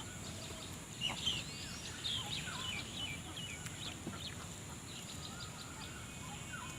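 Small birds chirping and twittering, many short calls overlapping, over a low steady background noise.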